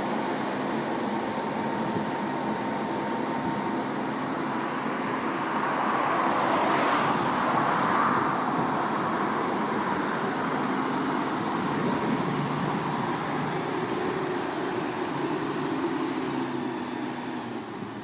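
Case 215 tractor's diesel engine running steadily while pulling a plough. It grows louder about a third of the way in, as if passing close, then eases off and falls away near the end.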